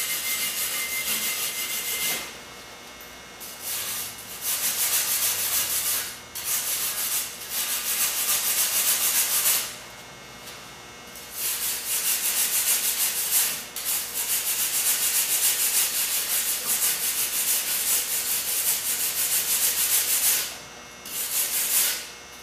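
A brush scrubbing fresh welds on steel brake rotors in rapid scratchy strokes, in several spells of a few seconds broken by short pauses, cleaning off the welding residue.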